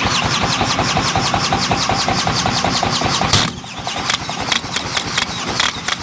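Cordless drill spinning the Atco Standard mower's Villiers two-stroke engine over by its flywheel nut, a fast, even rhythm of turning, without the engine catching. The cranking eases briefly about three and a half seconds in, then carries on. Smoke from the exhaust shows it is trying to fire, which the owner thinks could mean it is firing at the wrong time.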